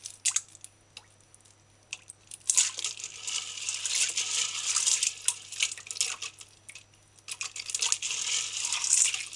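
Dried kidney beans being washed by hand in water in a stainless steel bowl. A few small clicks, then from about two and a half seconds a wet rattling and swishing as the beans are rubbed together against the steel, easing briefly near seven seconds before starting again.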